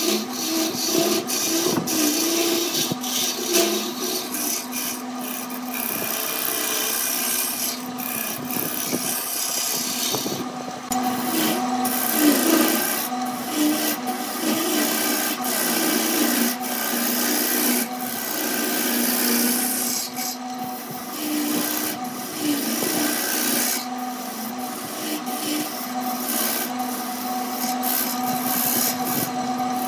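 A turning tool cutting a segmented wooden vessel spinning on a Burt wood lathe: a continuous scraping, rasping hiss with frequent small crackles. Under it is a steady hum from the lathe.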